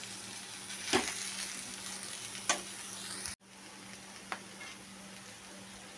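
Sliced bitter gourd and onions frying gently in oil in a kadhai on a low flame, a steady sizzle, with a few sharp clinks of the stirring spoon against the pan. The sizzle drops quieter about halfway through.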